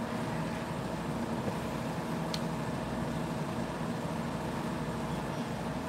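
A steady mechanical hum with a faint constant whine, like a machine running in the room, with a single faint tick a little over two seconds in.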